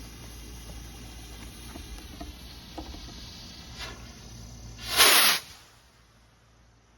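A Mad Hornet firework rocket's lit fuse fizzing, with crickets chirping behind it. About five seconds in comes a loud half-second whoosh as the rocket launches, then the sound cuts off abruptly.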